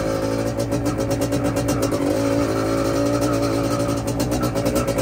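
Yamaha DT two-stroke motorcycle engine running at a steady pitch under way, heard from on the bike.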